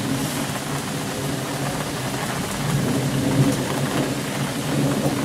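Thunderstorm: rain falling steadily, with thunder rumbling low underneath.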